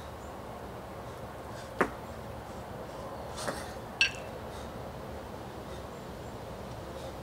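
Two 24 kg kettlebells held in the rack knocking together: three short metallic clinks within a few seconds, the first and last loudest, the last with a brief ring. A steady low hiss runs underneath.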